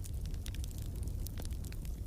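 Wood fire burning in a fireplace: a steady low rumble with frequent small sharp crackles and pops.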